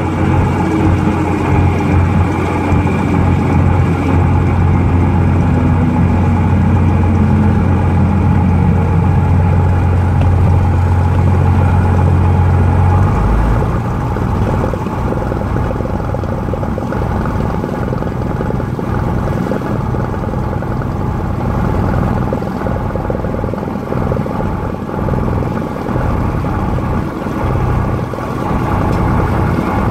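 Light airplane's engine and propeller running at low power, heard from inside the cabin during the landing rollout and taxi. A tone falls in pitch over the first several seconds as the plane slows, and the strong low drone drops off about thirteen seconds in.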